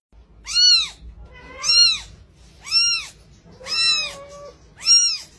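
A young kitten meowing five times, about once a second, each call a short high-pitched mew that rises and then falls in pitch.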